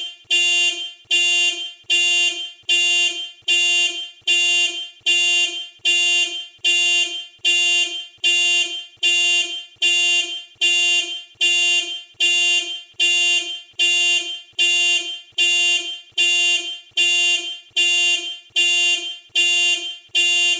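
Toyota factory keyless entry alarm set off from the remote fob: the car horn sounds in even repeated honks, about one a second. It stops just before the end.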